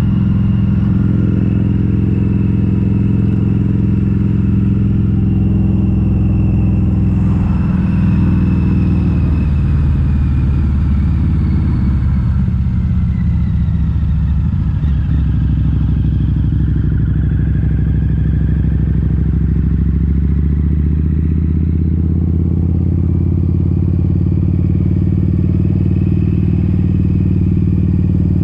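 Harley-Davidson V-Rod Muscle's liquid-cooled Revolution V-twin running through Vance & Hines Competition Series slip-on mufflers with the catalytic converters removed, heard while riding. The engine speed dips around the middle of the stretch and climbs again toward the end.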